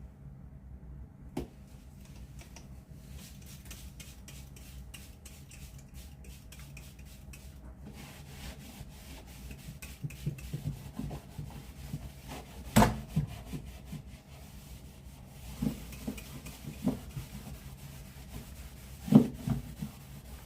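Cleaning cloth rubbed and wiped over a refrigerator surface in quick repeated strokes, with a few knocks against the fridge; the loudest knocks come about two-thirds of the way through and near the end.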